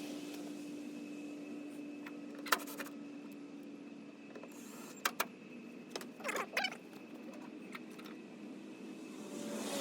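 Sharp clicks and a short clatter of small parts being handled, over a steady low hum that fades out about halfway through.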